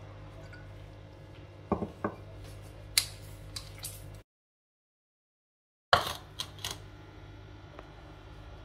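Hands mixing and kneading flour and water into dough in a ceramic bowl, with several sharp knocks and clinks against the bowl. The sound cuts out to dead silence for about a second and a half midway, then the knocks resume.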